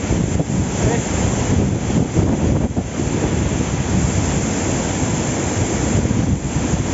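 Waterfall running in high flow: a loud, steady rush of falling water, with spray and wind buffeting the microphone.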